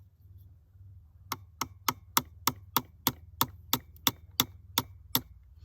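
A small gunsmith's hammer tapping the rifle's sight to drift it sideways for a windage adjustment: about thirteen light, sharp metal taps in a steady run of roughly three a second, starting about a second in.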